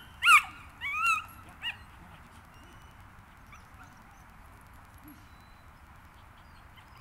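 Small dog yipping: three sharp, high-pitched yips in the first two seconds, the last one short, then only faint outdoor background.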